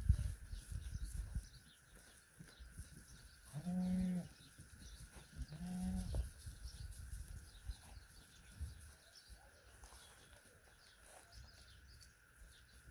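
Two short sheep bleats, about two seconds apart, over low rumbling noise that is strongest near the start.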